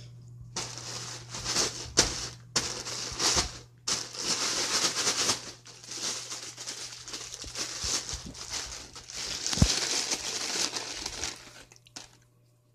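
Clear plastic bag of Cheez-It crackers crinkling and rustling as it is handled, in irregular bursts with short pauses and a couple of sharper knocks, stopping about a second before the end.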